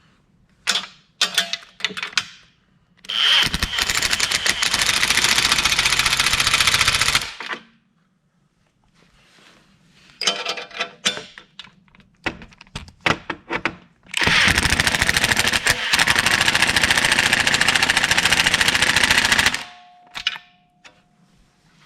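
Impact driver running in a bolt with a rapid hammering rattle, twice, for about four and then five seconds. Metal clinks and clicks of parts being handled come between the runs.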